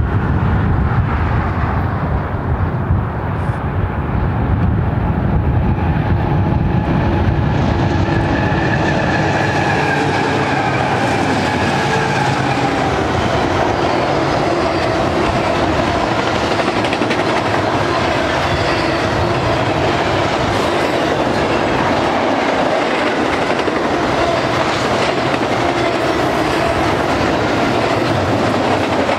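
A BNSF double-stack intermodal freight train passing. The low rumble of its GE diesel locomotives thins out after the first several seconds and gives way to the steady rolling noise and clickety-clack of the loaded well cars, with faint wavering wheel squeal.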